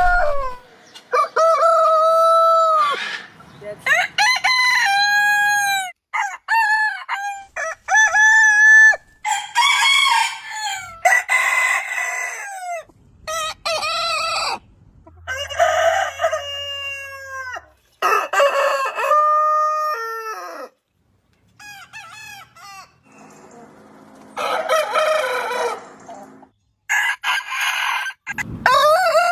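Rooster crowing, one crow after another, about a dozen in all, at several different pitches from high and thin to lower and fuller, each cut off abruptly.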